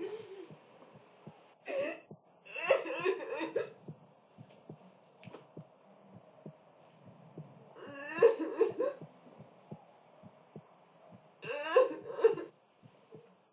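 A woman sobbing in four wordless bouts of broken, wavering cries, with faint quick ticks underneath.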